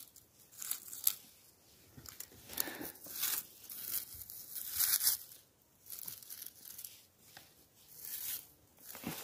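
Irregular rustling, crackling and tearing of moss and forest litter, about two bursts a second.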